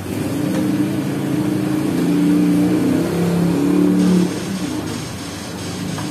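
A motor vehicle engine running, its pitch stepping up and down, loudest for the first four seconds and then falling away.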